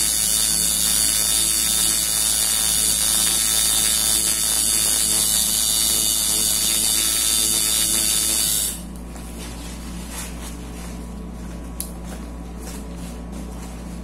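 Electric tattoo machine buzzing steadily as the needle works the skin, then switched off about two-thirds of the way in. A quieter low hum remains afterwards, with a single click.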